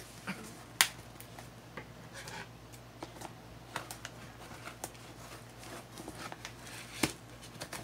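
Scissors cutting through the packing tape and cardboard of a shipping box: scattered snips and scrapes, with a sharp click about a second in and another near the end.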